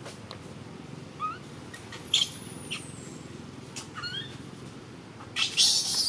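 Baby monkey calling: a few short, high, rising squeaks over a steady background hiss, then a loud, harsh cry near the end as it scrambles up.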